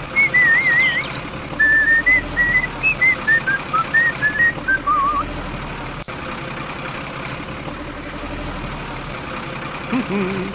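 Someone whistling a tune of short, warbling notes for about five seconds, then a steady low engine-like hum for the rest.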